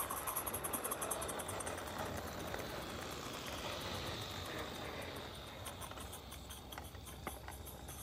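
Live steam 7/8th-scale De Winton model locomotive, fitted with a Summerlands Chuffer, chuffing in a quick even beat as it passes close by, then fading. Near the end the log wagons roll past with light clicking from their wheels on the track.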